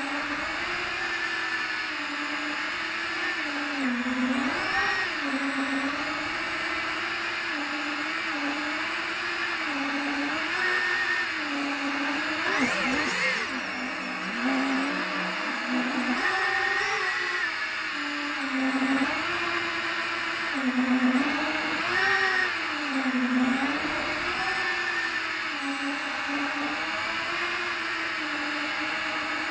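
FPV quadcopter's motors and propellers whining, the pitch rising and falling again and again with the throttle, heard from the camera on board. A quicker sweep up and down comes about thirteen seconds in.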